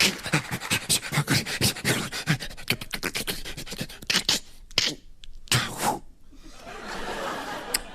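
A man making rapid mouth sound effects into a microphone: a quick run of clicks and short hisses, then a pause and a longer hiss about five and a half seconds in.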